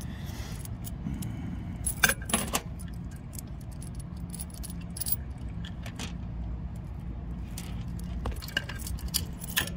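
Small metal clicks and clinks of a steel Romex cable clamp connector and its locknut being handled and fitted onto motor leads, the loudest pair about two seconds in and a cluster near the end. A steady low machinery hum runs underneath.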